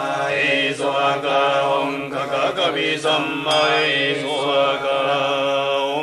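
Japanese Shingon Buddhist chanting: one continuous voice reciting sutra and mantra text in a steady chant, with short breaks for breath.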